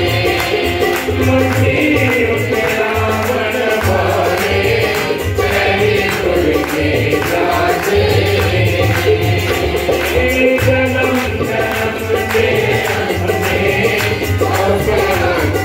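Harmonium and tabla playing a Punjabi devotional song. The harmonium holds sustained chords, the tabla's bass drum strokes keep a steady beat, and a light high rattle runs along with it.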